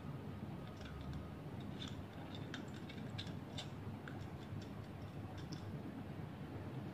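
Thin metal strips of a cut-open drink can being bent and folded by hand, giving irregular small clicks and ticks, thickest from about two to four seconds in, over a steady low background hum.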